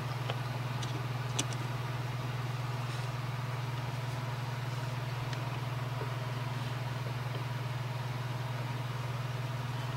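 A steady low hum, with a few faint ticks in the first second and a half as metal tweezers pick up a tiny coiled spring for a Lionel knuckle coupler.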